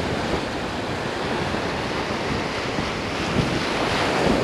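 Shallow ocean surf washing and breaking around the wader, a steady noise, with wind buffeting the microphone.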